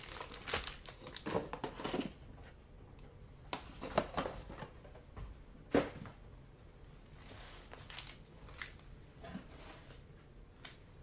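Foil-wrapped trading card packs crinkling and rustling as they are handled and stacked on a tabletop, with several sharp clicks and taps, the loudest about four and six seconds in.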